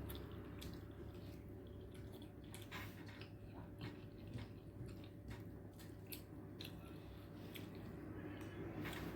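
Close-up eating sounds: chewing of rice and fish curry, with irregular small mouth clicks and wet squishes.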